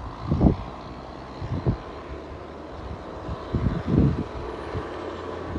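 John Deere 6430 tractor engine running steadily in the distance as it approaches hauling a load of bales, with irregular low rumbling bursts over it.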